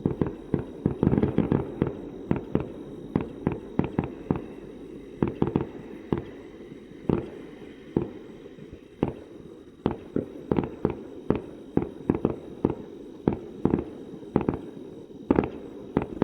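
Fireworks going off in a rapid, irregular string of bangs, several a second, over a steady low rumble from the bursts blending together.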